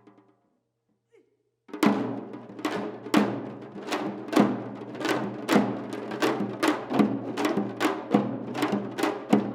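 Janggu (Korean hourglass drum) drumming. A fast roll dies away, then after about a second and a half of silence sharp strokes start again at about two a second.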